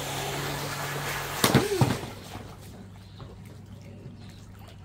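RC jet boat's motor running with water spray hissing as it speeds across a pool, cut by a brief loud thumping burst about a second and a half in. After that the boat's noise falls away, leaving a low steady hum.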